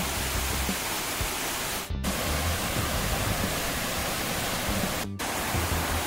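Waterfall rushing over stepped rock ledges, a steady dense roar of falling water. Two brief dropouts, about two and five seconds in, where the footage is spliced.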